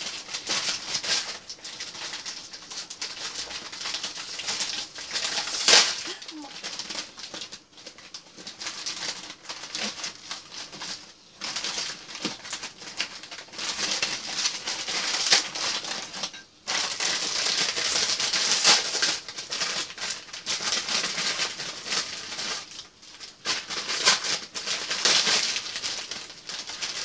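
Plastic instant-ramen packets crinkling and tearing as they are handled and opened, in irregular spells of rustling with brief pauses.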